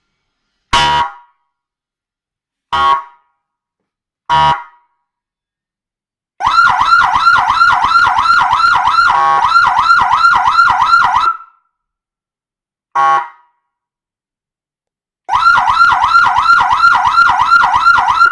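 Electronic vehicle siren played through a 12 V 200 W siren speaker. Three short horn blasts come first, then a fast up-and-down warble of about three sweeps a second for about five seconds. Another short blast follows, and the warble starts again near the end.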